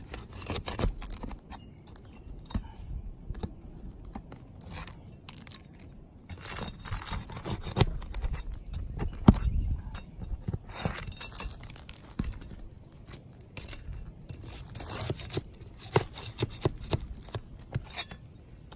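Steel pry bar prying roofing nails out from under asphalt shingles: scraping against the gritty shingles, with irregular metal clicks and clinks and a sharp knock about halfway through.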